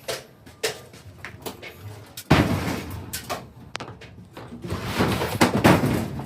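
A series of sharp knocks, about two a second, then a sudden loud crash about two seconds in and another long, loud, rough noise near the end.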